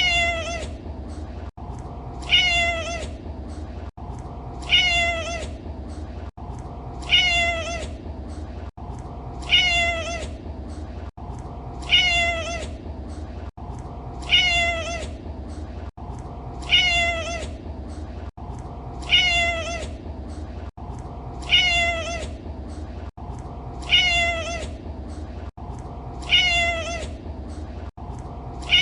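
A domestic cat's meow, the same short call repeated identically about every two and a half seconds, each one sliding down in pitch. A steady low hum runs underneath, broken by a brief dropout just before each meow.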